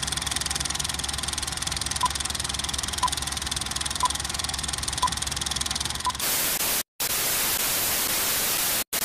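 Film projector clatter sound effect with countdown-leader beeps, five short beeps one second apart. At about six seconds it cuts to a louder hiss of static with brief cut-outs.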